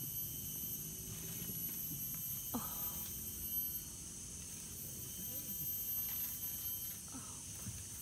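Rainforest ambience: a steady high insect drone, under a low murmur and a few short rising calls.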